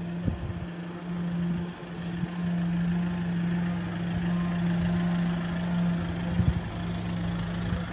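An engine running steadily at idle with an even low hum, over street ambience, with a couple of brief low knocks about six and a half seconds in.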